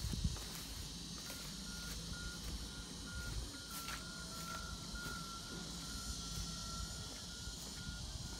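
Outdoor field ambience: a steady high hiss with a faint low hum underneath, and a thin high note repeating about three times a second from about a second in, running almost unbroken for a few seconds in the middle.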